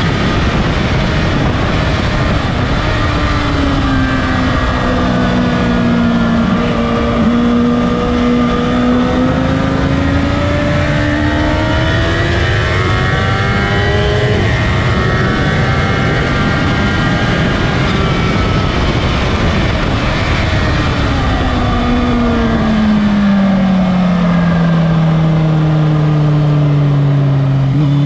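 Motorcycle engine heard onboard at track speed over a steady rush of wind noise. The engine note climbs slowly through the first half, then falls steadily near the end.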